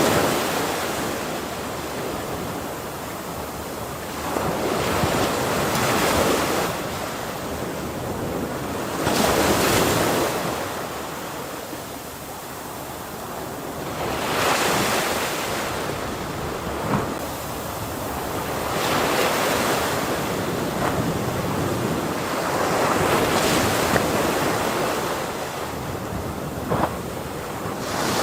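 Ocean waves breaking on a shore, a continuous surf wash that swells and eases every four to five seconds, with some wind on the microphone.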